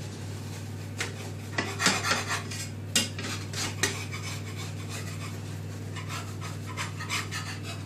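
A utensil scraping and scratching a stuck pancake off the bottom of a non-stick frying pan in short, irregular strokes. The batter went into the pan without oil and has stuck. A steady low hum runs underneath.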